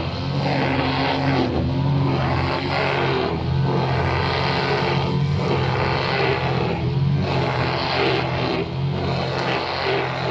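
Brushcutter engine running steadily under load. Its sound dips and swells about every two seconds.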